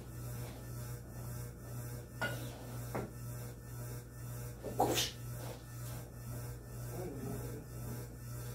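Electric fan running with a steady hum and an even rubbing pulse about three times a second. A few sharp knocks from handling things at the stove cut in, the loudest about five seconds in.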